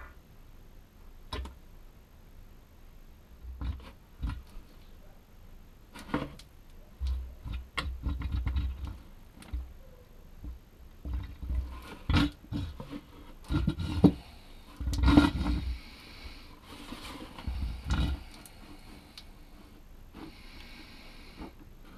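Irregular clunks, clicks and creaky, squelching strokes of hand work as gear oil is filled into a Land Rover Discovery's drivetrain, the second litre of two going in. The loudest knocks come about two-thirds of the way through.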